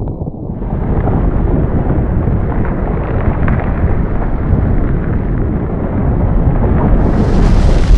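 Volcano eruption sound effect: a deep, continuous rumble with scattered crackles, growing louder near the end.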